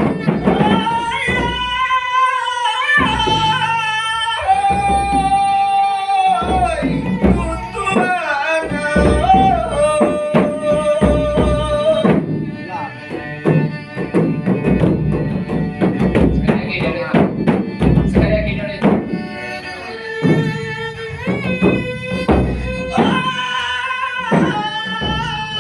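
Traditional Malay dendang singing: a voice holding long, ornamented notes that bend and waver, over hand-drum accompaniment.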